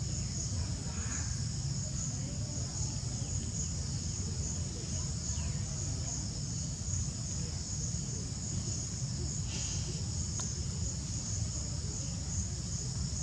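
Outdoor insect chorus: a steady high-pitched buzz pulsing about twice a second, over a constant low background rumble.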